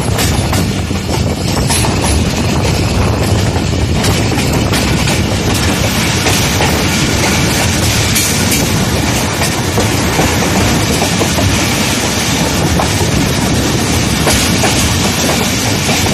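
Moving passenger train heard from beside its coaches: steady running noise and rushing air, with wheels clattering over the rail joints.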